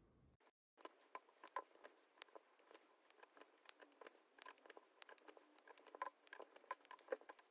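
Faint, irregular small clicks and ticks as 5 mm neodymium cube magnets are pushed one after another into a 3D-printed plastic bowl array with a metal pushing tool.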